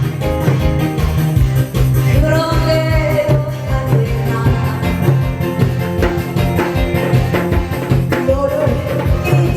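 Korean taryeong folk song performed live and amplified: a voice singing over a steady beat of traditional drums and gongs (janggu, buk, kkwaenggwari and jing), with sung notes held about two seconds in and again near the end.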